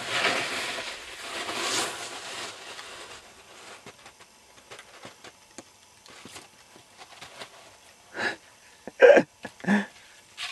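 Rushing scrape of a snowboard sliding over slushy spring snow, loud at first and fading out about three seconds in. Near the end, three short, loud bursts of a person's voice.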